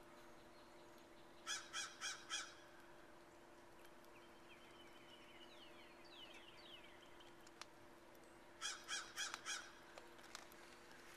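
A crow cawing, two series of four harsh caws: one about a second and a half in, the other near the end. Faint chirps from a small bird come between them.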